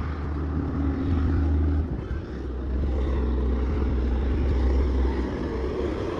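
Steady low rumble of a motor vehicle's engine and road noise, with a brief dip about two seconds in.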